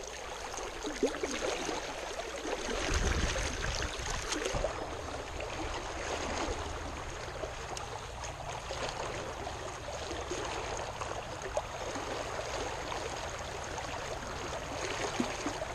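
Rushing water of a high, fast creek riffle, a steady hiss, with a brief low rumble about three seconds in.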